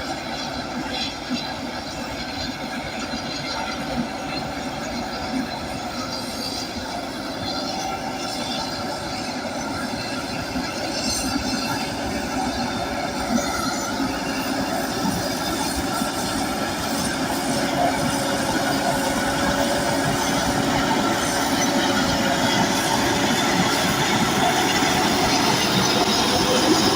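Bulldozer at work: diesel engine running under steel crawler tracks, a steady metallic noise with several high whining tones that grows gradually louder.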